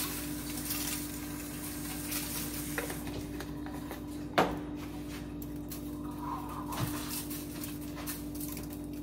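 Kitchen handling noises while a whole catfish is seasoned: light rustling and small clicks, with one sharp knock about four and a half seconds in, over a steady low hum.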